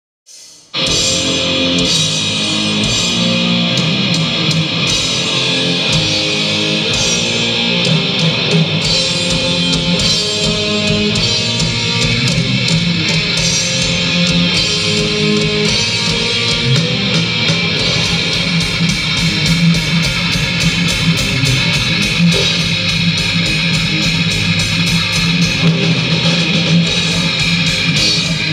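Heavy metal band playing live, instrumental: distorted electric guitars, bass and drums, kicking in suddenly under a second in. The drumming is fast, with no vocals.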